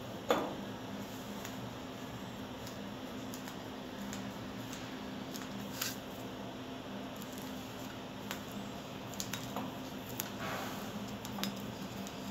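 Grey plastic flanged adapter handled and knocked against a bolted metal plate: a sharp knock just after the start, then scattered light clicks and taps, over a steady low hum.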